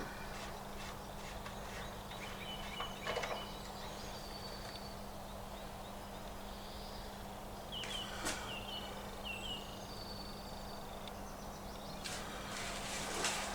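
Birds chirping in short calls, with a steady low hum underneath.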